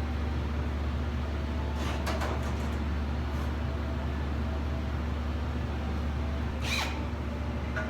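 Steady low hum of shop machinery, with a few light clicks or taps about two seconds in and again near the end.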